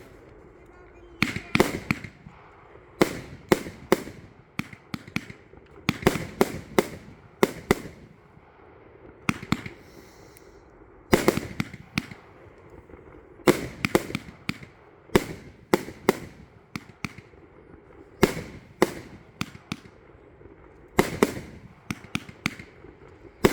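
Consumer firework compound of mines (J-Fireworks Miner A-B-C-D) firing: an uneven run of sharp bangs and cracks, several a second in clusters separated by short pauses.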